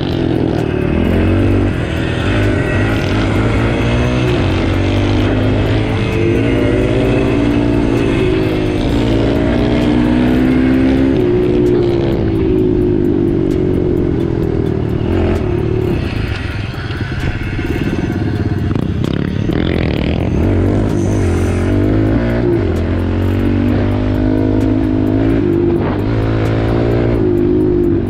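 Dirt bike engine running under the rider as it is ridden along a trail, its revs rising and falling again and again with throttle and gear changes. Music plays underneath.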